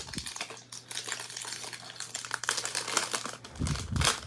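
Crinkling of plastic trading-card pack wrappers being handled, with cards rustling in a steady run of small crackles. A couple of soft low thumps come near the end.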